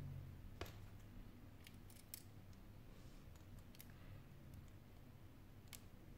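Faint, scattered small clicks and taps of the opened Sony Xperia Z5 Compact's frame and parts being handled and pressed together by fingers, about eight in all, the sharpest about half a second in.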